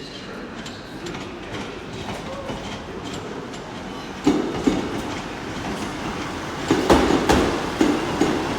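Class 158 diesel multiple unit running slowly into the platform. Its wheels knock over rail joints in an uneven clatter that starts about four seconds in and grows louder near the end.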